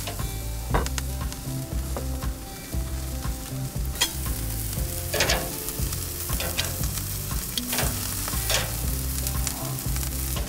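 A thick sirloin steak and pork back ribs sizzling on a charcoal grill's hot grate, with a steady crackle and several sharp pops of spitting fat.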